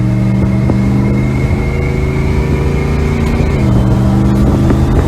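Turbocharged Ford 460 big-block V8 in a 1973 Thunderbird running steadily, with a thin high whine over the engine note. The engine note dips briefly about three-quarters of the way through, and a faint rising whistle follows near the end.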